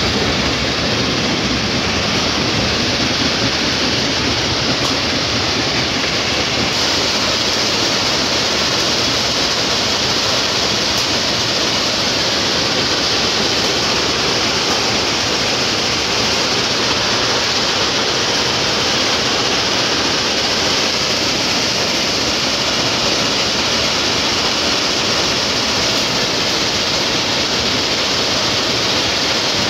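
A 120 TPH stone crusher plant running: the crusher, screens and conveyors together make a steady, loud, dense noise that never lets up.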